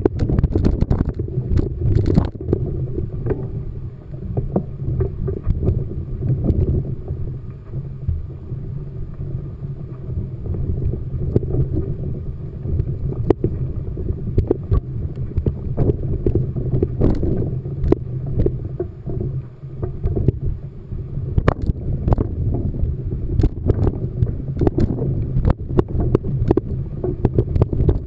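Mountain bike moving over rough trail: wind rumbling on the microphone, with frequent rattles and knocks from the bike and ground.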